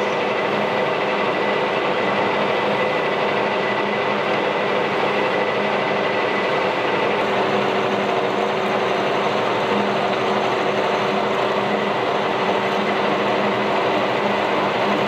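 Metal lathe running steadily, with a constant machine hum and whine, while a 5/16-inch twist drill in the tailstock chuck drills into a spinning bronze part: the tap hole for a 3/8-16 thread.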